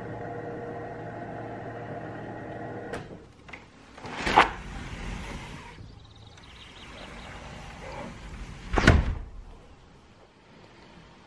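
A white-framed sliding glass door is slid along its track: two short, loud slides about four and a half seconds apart. Before that, a steady hum stops suddenly about three seconds in.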